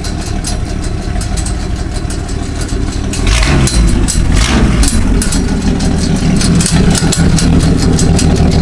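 A 1963 Ford F100 rat rod's engine idling, its exhaust coming out through open vertical stacks behind the cab; it gets louder about three seconds in.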